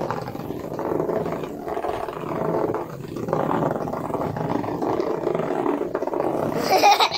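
HEXBUG Nano Flash vibrating robot bugs buzzing and rattling steadily as their vibration motors drive them along a plastic track.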